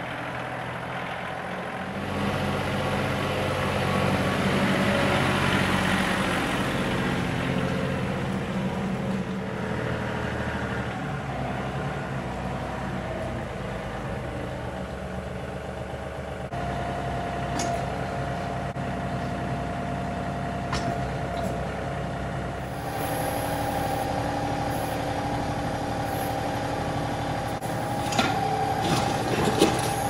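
John Deere 2038R compact tractor's three-cylinder diesel engine running under backhoe work, its speed stepping up about two seconds in. A steady higher whine joins about two-thirds of the way through, and a few sharp knocks come near the end.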